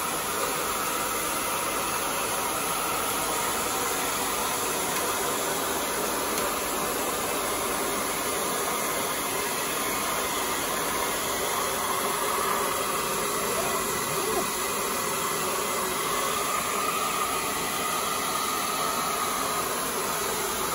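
Handheld electric blower running steadily, a constant rush of air, aimed at the thick ice on a split-type air conditioner's evaporator coil to melt it.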